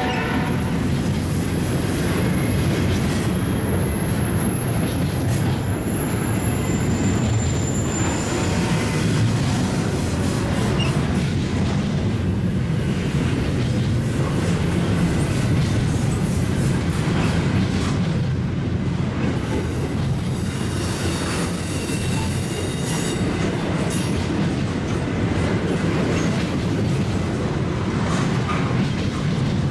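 Double-stack intermodal well cars rolling past: a steady rumble of steel wheels on rail. A thin, high wheel squeal comes and goes over it.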